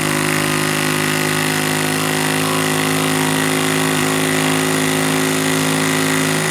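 Triton T20 20 V cordless impact driver driving a long screw into a block of lime wood, its hammer mechanism rattling out rapid impacts under load in one steady, unbroken run at an even pitch.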